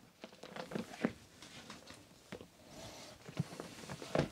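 Scattered knocks, taps and rustling of a person moving about close to the microphone. The loudest knocks come about a second in and just before the end.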